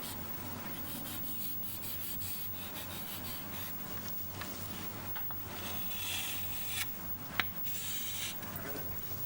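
A pen scratching and rubbing in irregular strokes as a diagram is drawn, with a sharp tap about seven seconds in, over a steady low hum.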